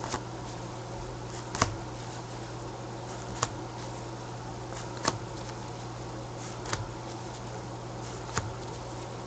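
Cards drawn one at a time from a deck and laid on a pile, a short sharp slap about every 1.7 seconds, six in all, over a steady low hum.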